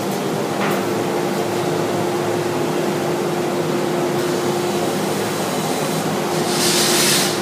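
Steady workshop hum of running machinery and ventilation, carrying one held mid-pitched tone, with a brief hiss near the end.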